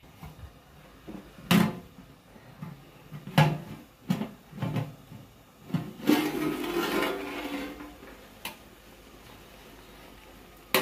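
Flat aluminium lid and a metal spoon knocking several times against a large aluminium cooking pot. About six seconds in, a two-second rush of noise as the lid is lifted off the pot of boiling chicken.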